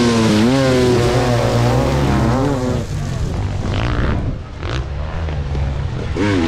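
Several motocross bikes' engines revving hard, their pitch rising and falling in waves as the riders accelerate and shift, over a steady low drone of more engines. The revving eases about three seconds in and picks up again near the end.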